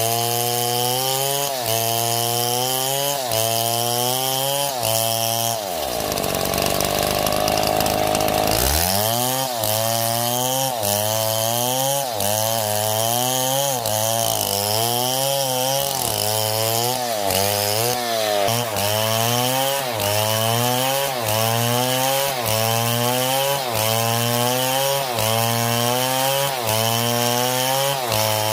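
Chainsaw cutting wood, its engine pitch dipping and recovering in a steady rhythm of just under a second as the bar works through the cut. About six seconds in it revs up freely for a couple of seconds, then drops back under load.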